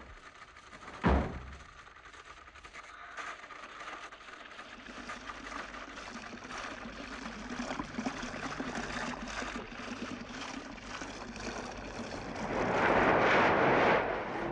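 A door shutting with a single sharp knock about a second in. Then a hiss of sea surf that slowly builds and swells into a loud breaking wave near the end.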